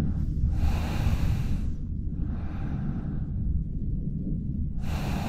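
A person breathing heavily in three long breaths of about a second each, over a steady low rumble of wind on the microphone.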